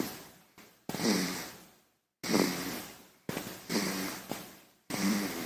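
A baby snoring in its sleep: short snoring breaths, one about every second and a half. Each starts suddenly with a low rasp and trails off into a breathy hiss.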